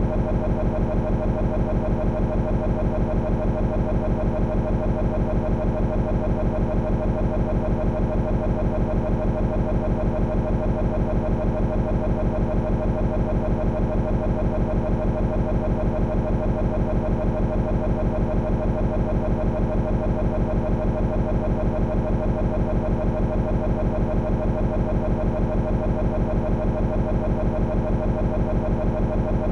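A steady, buzzing drone with a fast regular pulse that never changes: a short stuck fragment of audio looping over and over, the sign of a corrupted recording.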